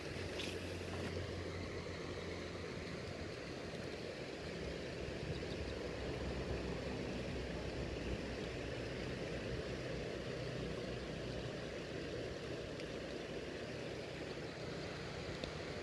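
Steady rush of a shallow stream flowing over stones, with some low wind rumble on the microphone. A brief high hiss comes about half a second in.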